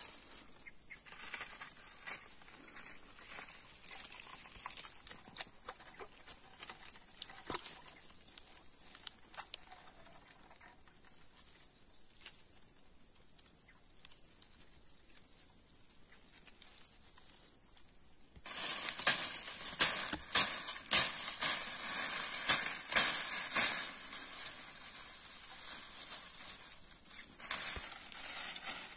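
Steady high-pitched insect chorus. Past the middle, several seconds of loud, irregular rustling and knocking noises.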